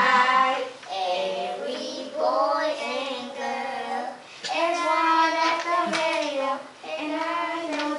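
A group of preschool children singing a song together in sung phrases of held notes, with short breaks between the lines.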